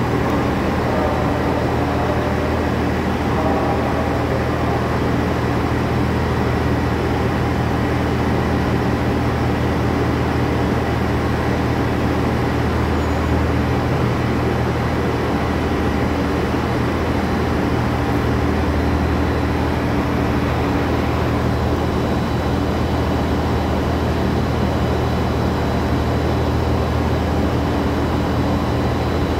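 JR HC85 series hybrid diesel railcar standing at the platform, running at a standstill with a steady low hum.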